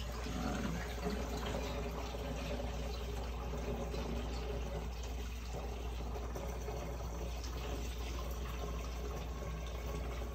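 Distilled water poured steadily through a funnel into a laser water chiller's reservoir, filling it up toward the normal mark on its level gauge.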